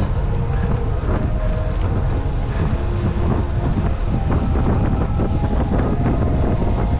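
Wind rushing over the microphone of a camera on a track bike riding at speed around a velodrome, a steady low rumble.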